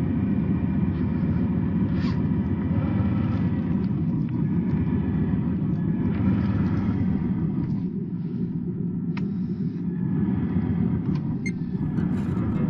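Traxxas TRX-4 RC crawler's electric motor and gears running: a steady low rumble with a faint whine, and a few short knocks.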